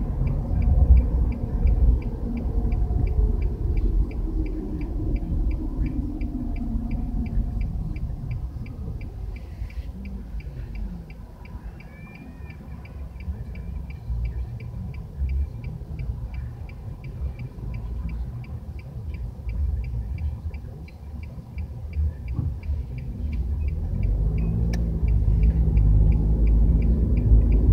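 Car interior road and engine noise, a low rumble that dies down as the car slows to a stop at a red light. It stays quieter while the car waits, then builds again as the car pulls away near the end. A light, fast, even ticking runs through it.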